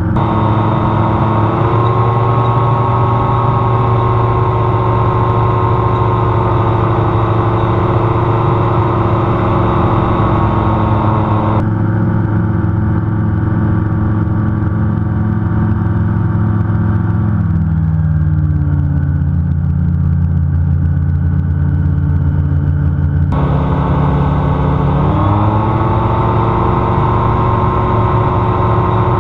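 Engine and pusher propeller of a Celier Xenon gyroplane, heard from inside its cockpit, running steadily at flying power. A little past halfway the engine note drops as power comes off, then climbs back up a few seconds before the end as power is added again.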